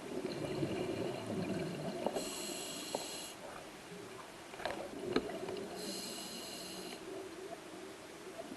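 Scuba diver breathing through a regulator underwater: two hissing inhalations about a second long, some three and a half seconds apart, with the bubbly gurgle of exhaled air between them. A few sharp clicks sound about five seconds in.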